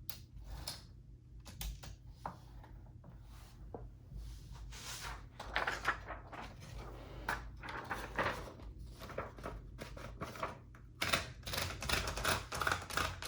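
1923 Remington Portable No. 2 typewriter being worked by hand: scattered mechanical clicks and short sliding rattles from its carriage and platen mechanism, coming thicker near the end.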